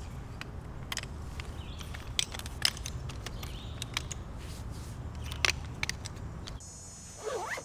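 A folding camp chair's metal pole frame being folded by hand, its segments clicking and rattling against each other. About six and a half seconds in, crickets start chirring steadily.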